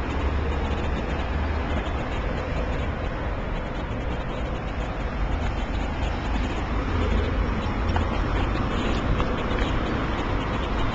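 Steady city traffic noise: a continuous low rumble of passing vehicles.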